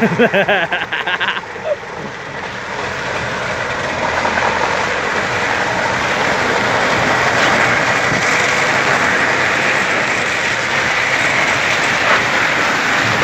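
Heavy truck running close by: a steady, noisy rush that swells a few seconds in and holds. A voice and a brief rapid ticking are heard at the start.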